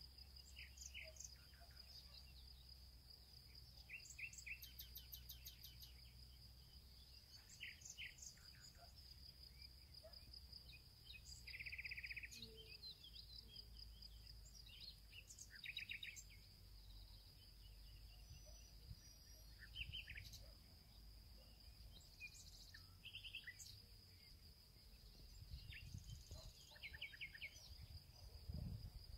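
Faint outdoor summer ambience: a steady high-pitched insect buzz held at one pitch, small birds chirping with a few short trills scattered throughout, and a low wind rumble.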